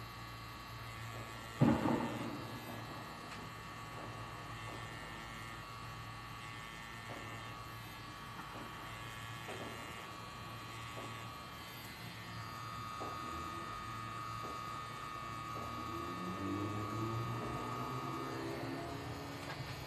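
Pen-style tattoo machine running with a steady electric hum as it inks skin. A sharp knock comes about two seconds in, and a low rising drone joins near the end.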